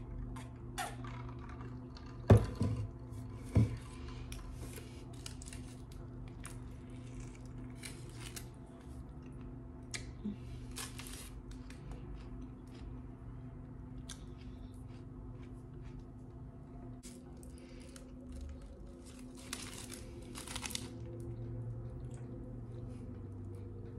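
Close-up chewing of a burrito, with many small crackles from its foil wrapper over a steady low hum. Two loud thumps about two and three and a half seconds in.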